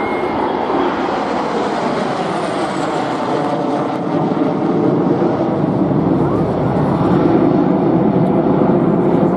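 Jet noise from a Dassault-Dornier Alpha Jet's twin Larzac turbofans as it flies a display manoeuvre overhead. It is a steady, loud rush that swells a little louder near the end.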